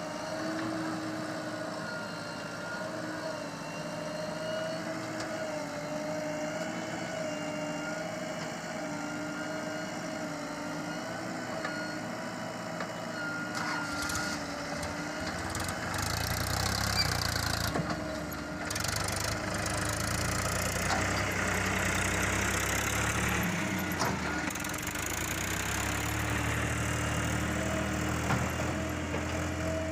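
Diesel engine of heavy earthmoving machinery running steadily, then working harder and louder with a deeper rumble from about halfway through.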